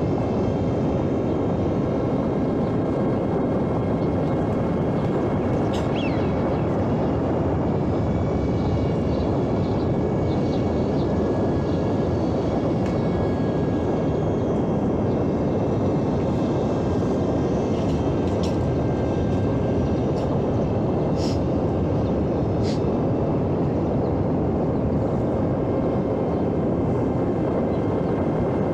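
Small electric radio-controlled airplane in flight: its motor and propeller run steadily under heavy wind rush, as heard from a camera mounted on the airframe, with a faint whine that drifts slightly in pitch.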